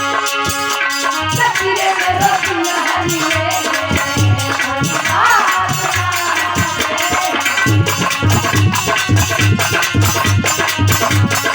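Bhajan music: a fast, steady beat of hand drum and shaker-like percussion under a held melody line.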